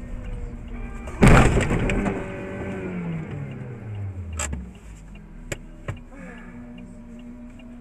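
A sudden loud bang about a second in, a car collision as heard from inside a dashcam car. Then an engine's pitch falls steadily as it winds down, a few sharp clicks follow, and an engine hums steadily near the end.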